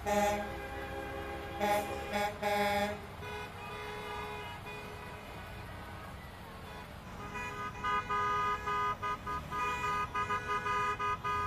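Vehicle horns honking as convoy vehicles drive past: a few held blasts in the first three seconds, then a run of quick repeated toots from about seven seconds in, over the low rumble of the passing vehicles.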